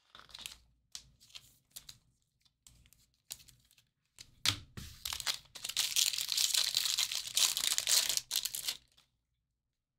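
Foil wrapper of a Bowman Jumbo baseball card pack being torn open and crinkled, loud and continuous for about four and a half seconds before stopping sharply. Before it come a few light clicks and rustles of cards being handled.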